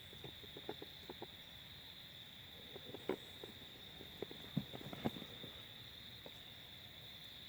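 Scattered faint crackles and ticks of dry leaves and twigs rustling on the forest floor, a little louder about three and five seconds in, over a steady high hum.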